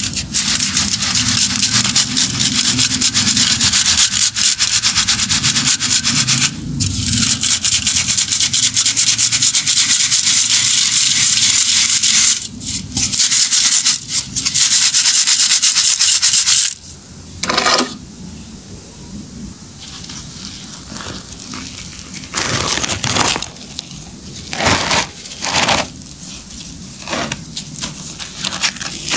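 Fine dry concrete powder pouring from a metal bowl onto a heap of powder as a steady, loud hiss, with two short breaks. About 17 seconds in the pouring stops, and short, quieter bursts of rustling and scraping follow as hands rub and crumble dry concrete chunks and dust.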